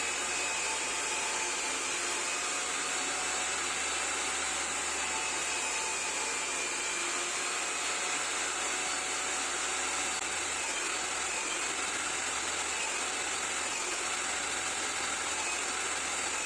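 A woodworking power tool running steadily, giving an even, high hiss.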